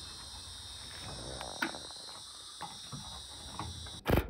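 Steady high chirring of insects, with a few faint clicks of the metal bracket being handled. Near the end comes a brief loud burst from a Ryobi cordless impact driver driving in the mount's fastener.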